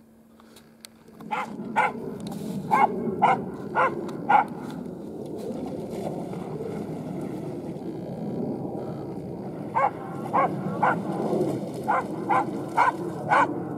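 A dog barking in short, sharp barks: a run of about six in the first few seconds, then another run of about seven from about ten seconds in, over a steady rushing noise.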